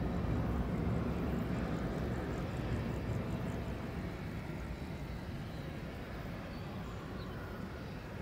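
Jet engines of a Boeing 767-300 freighter running at taxi power: a steady low rumble that fades gradually.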